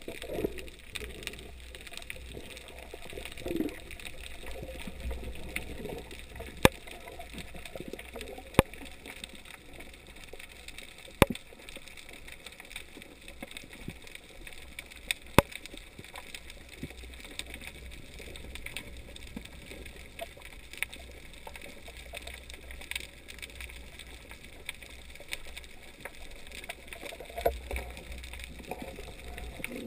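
Underwater ambience as heard by a camera in the water: a low, muffled rumble of moving water with scattered sharp clicks, four of them loud, between about six and sixteen seconds in.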